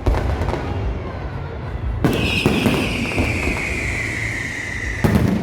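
Fireworks going off in a run of sharp bangs and crackles. About two seconds in a loud burst is followed by a long whistle falling slowly in pitch for about three seconds, cut off by another bang.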